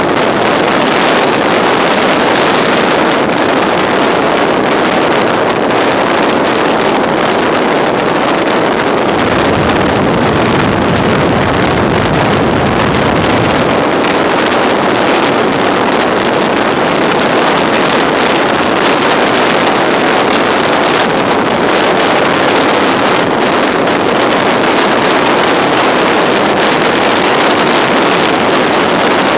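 Steady noise of a motorcycle being ridden at speed: wind rushing over the microphone mixed with engine and road noise. A deeper rumble comes in for several seconds near the middle.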